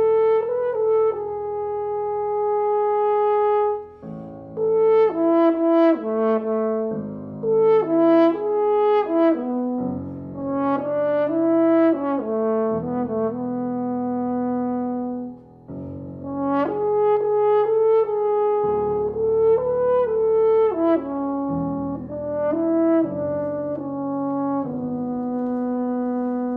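French horn playing a melodic line with piano accompaniment, in phrases of sustained notes broken by two short pauses, about four and fifteen seconds in.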